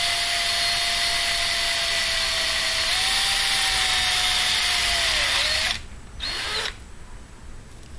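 Electric drill with a 5/32-inch (4 mm) bit, drilling through a metal bracket with a steady motor whine. The pitch sags just before it stops, nearly six seconds in. It is followed by one brief second burst.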